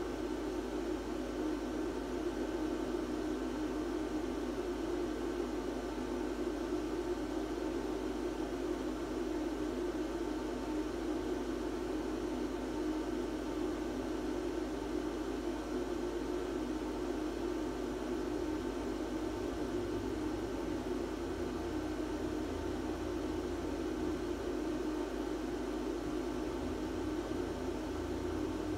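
Electric blower fans of Gemmy Airblown inflatable ghosts running steadily, keeping them inflated: an even, unchanging hum with a hiss over it.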